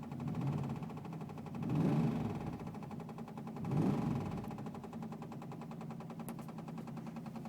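1984 Camaro engine running with a rapid, even ticking, an intermittent tick of unknown cause. The sound swells briefly three times, about half a second, two seconds and four seconds in.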